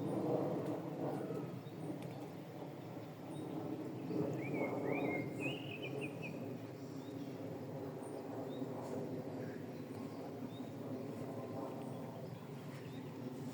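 A songbird sings a short phrase of quick rising chirps about four to six seconds in, with a few faint high calls scattered elsewhere, over a steady, low background noise.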